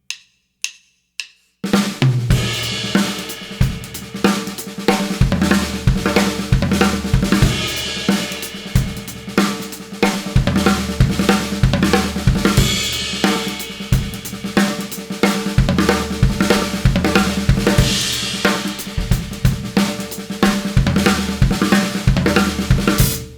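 Pearl drum kit with Soultone cymbals played at a brisk tempo: a six-stroke-roll fill with one snare stroke replaced by a bass drum stroke, with hi-hat and cymbal crashes. A few stick clicks count it in.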